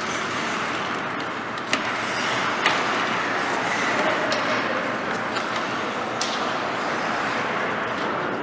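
Ice hockey skate blades scraping and carving across the rink ice in a steady hiss, with a few sharp clacks from the play, three of them standing out.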